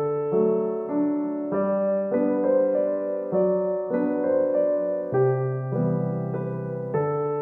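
Background piano music: a gentle melody of held notes and chords that change about every half second.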